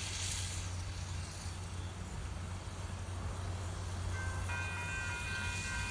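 Great Smoky Mountains Railroad #1702, a USATC S160 2-8-0 steam locomotive, approaching with a low steady rumble. About four seconds in, its whistle starts a long, steady blast of several notes at once.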